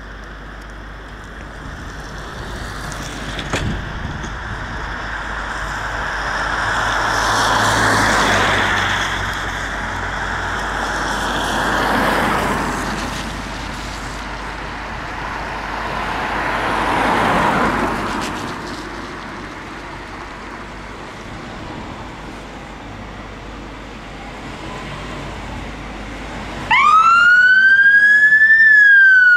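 A fire engine's siren switches on near the end, loud, in a wail that rises and then falls. Before it, a rushing noise swells and fades three times.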